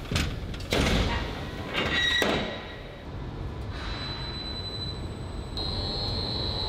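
A heavy steel sliding door on a shot-blast chamber is pushed shut: several clanks and scrapes, with a brief metallic screech about two seconds in. The steady noise of the machine follows, and a high whine comes in and grows louder near the end as the blast impellers are started.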